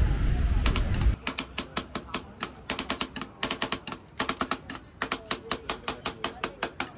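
Street noise for the first second, then cut off abruptly. A typing sound effect follows: rapid key clicks in quick runs with short pauses.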